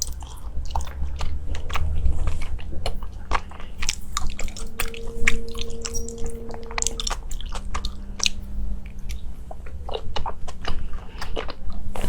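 Close-miked eating: a person biting and chewing crunchy food, with many sharp, irregular crunches and mouth clicks.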